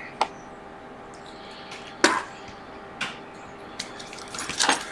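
A few short sharp clicks and taps as an iPhone X logic board is unclipped from its board holder and handled on the bench, with a cluster of taps near the end, over a faint steady hum.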